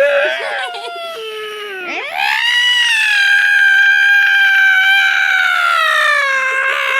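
A person's voice making a deliberately annoying noise: a wavering cry for about two seconds, then a pitch sweeping up into a long, high, held squeal lasting about five seconds that sinks slowly near the end.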